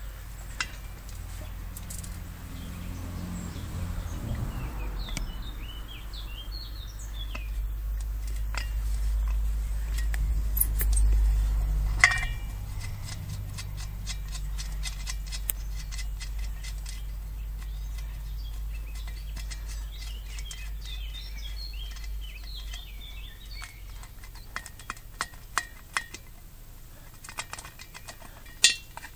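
Small birds chirping in short bursts, over a low rumble that fades about halfway through. Scattered light metallic clicks as a wrench and fingers work the air valve's nut loose from the steel pressure tank, with a sharp click about twelve seconds in and several more near the end.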